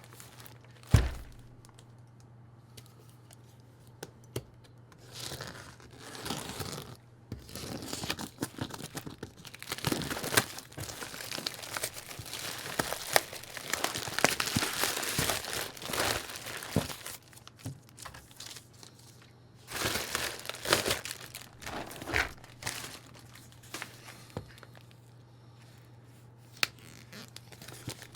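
Packaging being opened by hand: plastic crinkling and tearing in repeated bursts, with a sharp thump about a second in and a steady low hum underneath.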